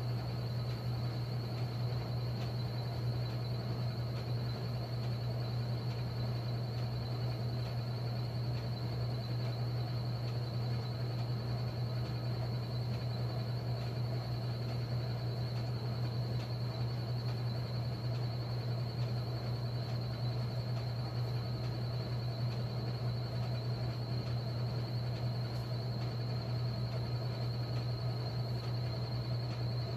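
1957 Blackstone 350 automatic washer running steadily with its stainless basket spinning: a steady low hum with a faint high whine above it.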